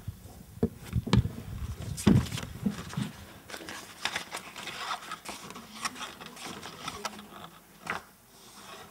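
Book pages being leafed through and paper rustling, with a few sharp knocks and thuds in the first couple of seconds as a handheld microphone is handled and set down on the desk.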